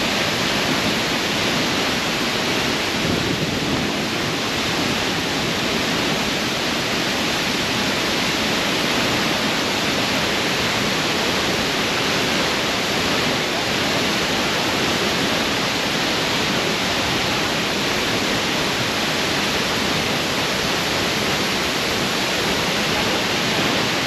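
La Fortuna Waterfall pouring into its pool, a steady, unbroken rush of falling water.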